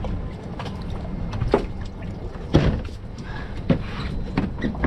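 A handful of sharp knocks and thumps, the loudest about two and a half seconds in, over a steady low rumble of wind and water on a drifting fishing boat.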